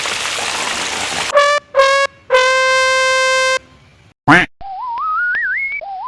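A rush of hiss, then a brassy horn sounding two short blasts and one longer held blast at about the same pitch. After a brief blip, a wavering tone climbs in steps, and starts climbing again near the end.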